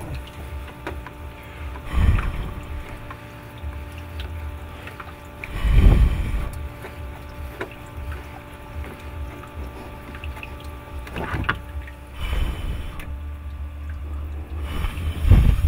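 Steady hum and low rumble of a running fogponics chamber with its ultrasonic fogger, broken four times by louder low rumbling bursts.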